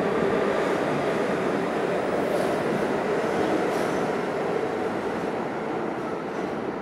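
R46 subway train pulling out of an underground station, its cars rolling past with steady running noise of wheels and motors, with a couple of brief high squeaks partway through. The noise starts to fade over the last couple of seconds as the rear car goes by.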